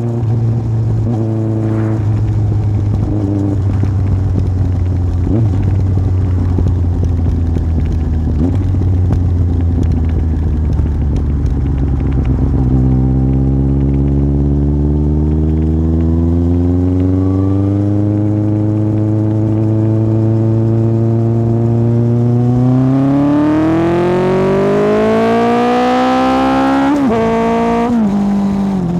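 Yamaha Fazer 1000's inline-four engine through an MIVV aftermarket exhaust while riding. It holds a steady pitch for the first part, then the revs climb gradually from about halfway and rise hard near the end before dropping sharply twice.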